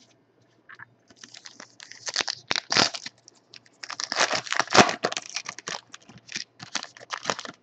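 Foil wrapper of a trading card pack being torn open and crinkled by hand: a dense run of sharp, crisp rustles and tears starting about a second in.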